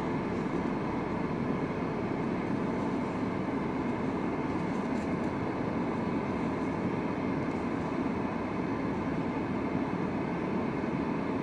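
Steady low rumble and hiss of background noise with no distinct events.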